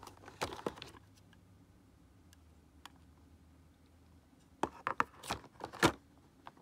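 Hard plastic clicks and crinkles as a shaver's attachment head is lifted out of and pressed back into a clear plastic blister tray: a few in the first second, then a louder run of them about five to six seconds in.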